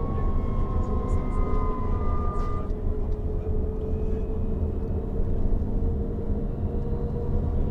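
Mercedes-Benz Travego coach's retarder whining, heard from inside the passenger cabin as a steady whine that drifts slowly in pitch over the low rumble of the moving coach.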